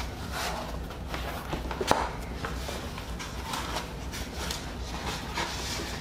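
Large cloth-topped, rubber-backed mouse pad (Razer Goliathus Extended Chroma) being unrolled and handled on a desk: soft, scattered rustling and scuffing, with a sharp tap about two seconds in.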